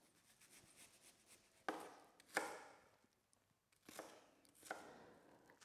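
Chef's knife chopping an onion on a wooden cutting board: four separate strokes, in two pairs about two seconds apart.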